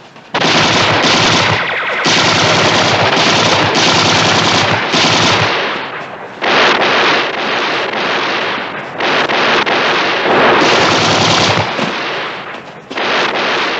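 Long bursts of rapid submachine-gun fire, shot after shot, with short lulls about six and twelve seconds in.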